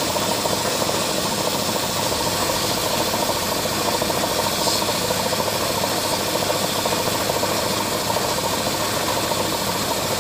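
Abrasive blasting (sandblasting) cabinet running: a steady, even hiss of the air-and-grit jet working on a gold bangle to give it a matte finish.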